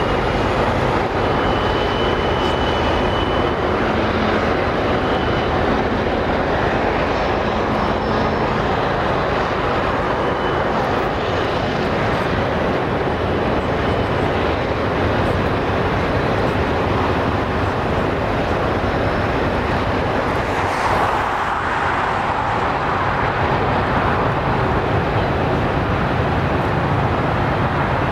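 Canadian Pacific intermodal freight train rolling by: a steady rumble of double-stack container cars on the rails, with a few faint, brief high tones on top.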